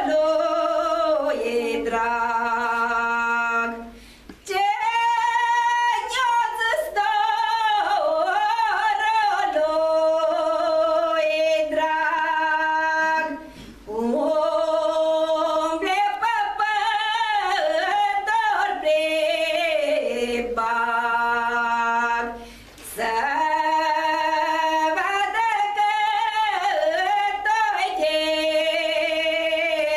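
A woman singing a Romanian folk song unaccompanied, in long phrases of held, ornamented notes, with short breaks for breath about every nine seconds.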